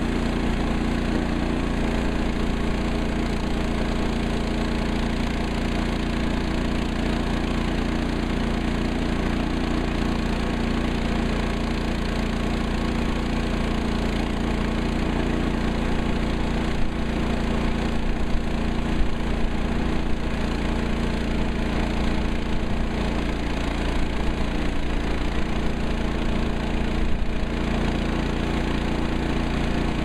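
Portable band sawmill's gas engine running steadily, with a few sharp ticks in the second half.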